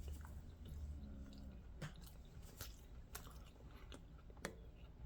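A person chewing a mouthful of a cold egg-white and vegetable egg bite, faint, with a few short clicks of the mouth scattered through.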